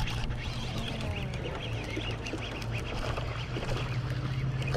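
A steady low hum from a small motor, with a few faint, short squeaky calls over it.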